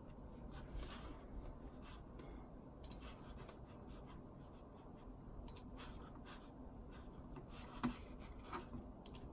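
Faint rubbing and scraping of things being handled on a desk, with a few scattered light clicks.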